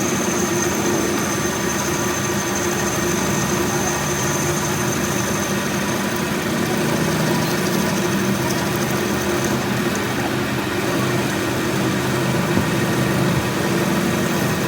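Metal lathe running steadily with a low, even machine hum and a thin high whine that fades out about ten seconds in.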